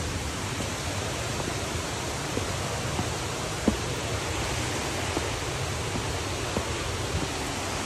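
Steady rushing of falling water, an even hiss across all pitches, with a few light taps of footsteps on concrete steps, the sharpest a little over three and a half seconds in.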